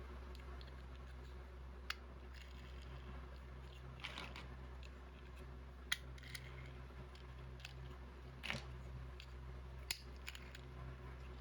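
Plastic Lego bricks being handled and pressed together: scattered sharp clicks and brief rustles, about half a dozen, over a steady low hum.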